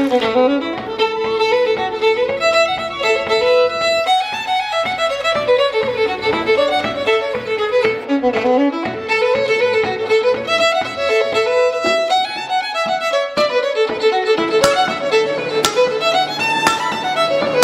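A fiddle playing a lively tune, its melody rising and falling with slides between notes, with a few sharp taps near the end.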